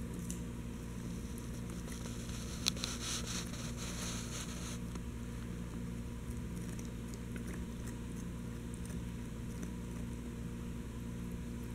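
Chihuahua gnawing on a chew bone: scattered small clicks of teeth on the chew, with a denser burst of crunching from about three to five seconds in, over a steady low background hum.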